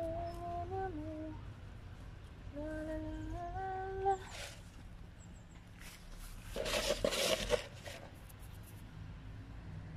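A woman humming a tune in two short phrases of held notes that step up and down. About seven seconds in comes a second of loud rustling.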